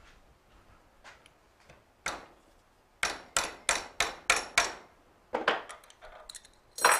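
Mallet striking a spanner wrench to tighten a 5C collet in its hex collet block, held in a bench vise: one tap, then a quick run of six taps at about three a second, then a few more, the loudest near the end.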